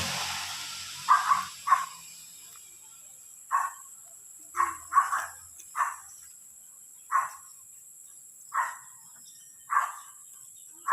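A dog barking repeatedly, about ten short sharp barks spaced a second or so apart, some in quick pairs, over a steady high-pitched drone of insects.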